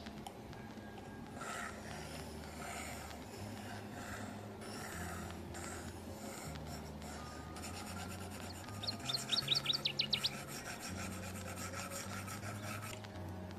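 Stylus tip scratching across an iPad screen in a series of drawing strokes, with a fast run of sharp back-and-forth scribbles about two-thirds of the way through, the loudest part, as the shape is hatched in.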